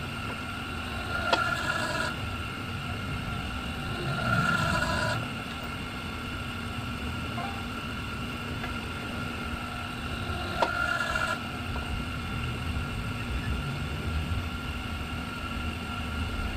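Hydraulic wheel-straightening rig running with a steady mechanical hum as the ram presses a dent out of an alloy rim. There are a few brief louder surges and two sharp clicks, one about a second in and one near ten seconds.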